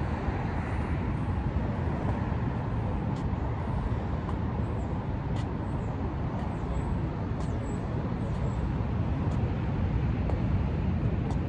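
Steady low outdoor rumble of background noise, with a few faint ticks.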